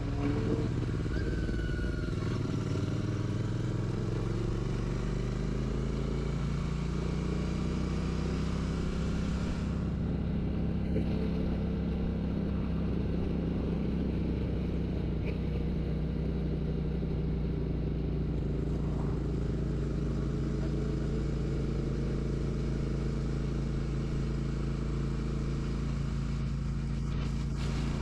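Royal Enfield Classic 650's parallel-twin engine and exhaust under way. It rises in pitch as the bike accelerates over the first several seconds, then holds a steady note at cruise.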